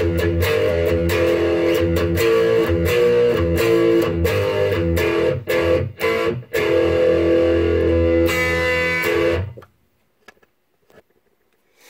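Electric guitar played through a Marshall JCM800 Master Model 50 W Mk II Lead tube amp with EL34 power tubes: a run of picked chords and notes, being play-tested after a post-phase-inverter master volume was installed. The playing stops abruptly about two seconds before the end.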